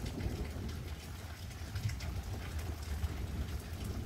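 Steady rain falling, with scattered drops ticking close by over an even hiss and a steady low rumble underneath.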